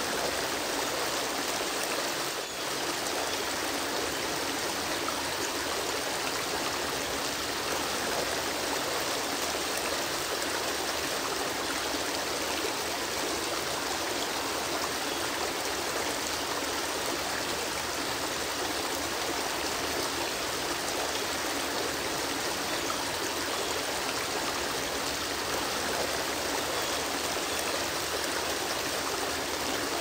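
Waterfall and stream water rushing in a steady, even hiss, with a brief small dip in level about two and a half seconds in.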